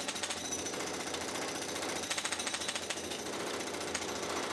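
Jackhammer rattling in rapid strokes while breaking up the concrete footbridge, loudest in two spells, at the start and about two seconds in.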